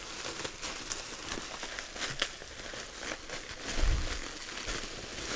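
Blue bubble wrap being pulled off and handled: a continuous crinkling and rustling of plastic with many small crackles, and a dull thump about four seconds in.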